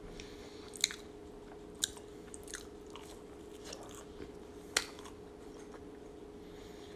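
Close-miked chewing of a mouthful of fast food, with a few short, sharp crunchy clicks scattered through, over a faint steady hum.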